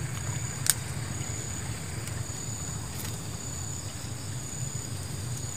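Paddy-field snail shell cracking under a foot, two short sharp cracks about two seconds apart, as it is broken open for its meat. Behind it run a steady high insect drone and a low hum.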